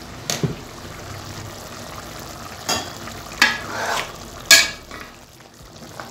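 A glass pot lid clinks as it is lifted off, then a metal spoon stirs the simmering beef stew, scraping and knocking against the pot three times, the third the loudest, over a steady sizzling hiss.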